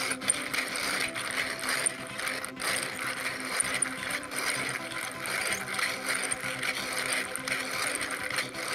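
3D-printed plastic radial engine model turned by hand, its eight pistons sliding in their cylinders and the connecting rods working on the hub, making a continuous dry clicking rattle.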